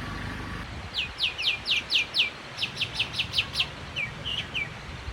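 A bird calling in quick series of sharp, down-slurred whistled notes, two runs of about five or six, then a few softer, shorter notes, over a steady low background rumble.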